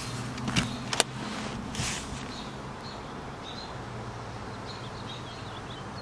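Two sharp clicks, about half a second apart, then a brief swish as the Lotus Evora S's manual passenger seatback is unlatched and tipped forward by hand. A steady low hum runs underneath and fades after about a second and a half.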